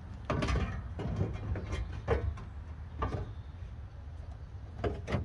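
Sheet-steel replacement body panel being picked up and offered up against a car body: a scrape, then a series of light knocks and rattles, over a low steady background rumble.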